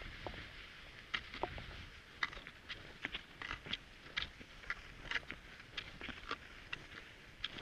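Cross-country skis and poles working on snow: short crisp crunches two or three a second over a soft hiss.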